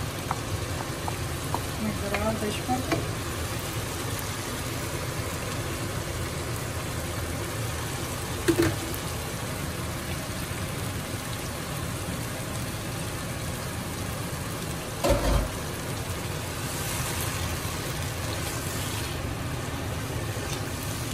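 Dal sizzling in a pot of hot oil and masala as it is stirred in with a wooden spoon. The frying is steady, with small clinks a couple of seconds in and two sharp knocks against the pot, about eight and fifteen seconds in.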